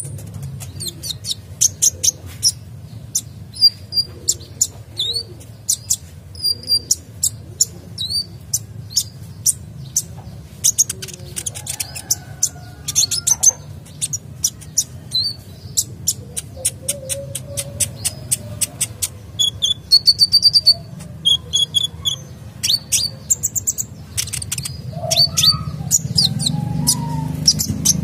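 Male sunbird singing in full voice: a fast, varied run of sharp, high chirps and short trills, over a low steady background hum that grows louder near the end.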